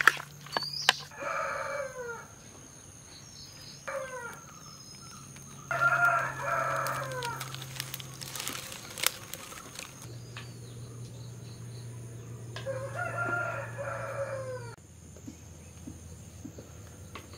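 Rooster crowing: three long crows, about a second in, around six seconds in and near thirteen seconds, each dropping in pitch at the end, with a shorter call near four seconds.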